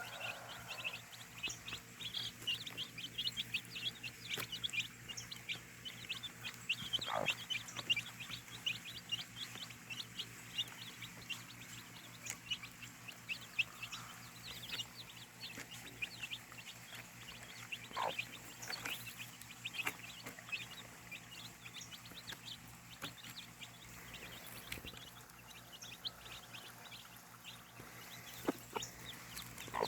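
Many birds chirping rapidly and continuously in short high chirps, with an occasional louder single call. Typical of a farmyard with chickens.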